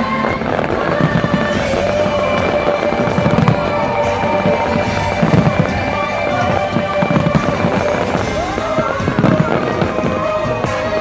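Fireworks bursting, about five deep booms roughly two seconds apart, over loud show music playing continuously.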